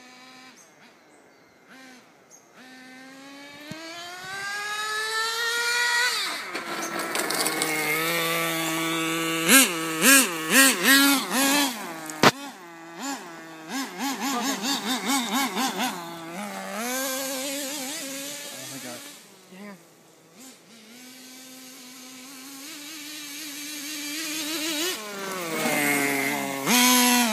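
1/10-scale nitro RC truck's small two-stroke glow engine revving up to a high, wavering note and holding it for several seconds. It drops back to a lower steady note, then revs up again near the end.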